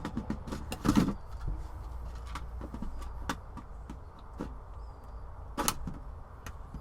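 Plastic clicks and knocks from a Kidde battery-operated carbon monoxide alarm being slid onto its plastic wall-mounting bracket: a cluster of knocks about a second in, a few lighter clicks, and another sharp knock near the end.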